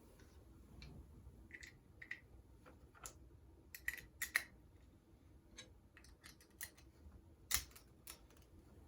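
Faint, scattered clicks and light knocks of equipment being handled, several in quick succession about halfway through and the sharpest one near the end.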